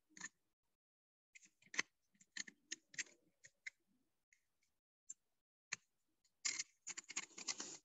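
Pink chart paper being rolled by hand into a finger-sized tube: faint scattered crackles and clicks of the paper, with a denser rustle near the end.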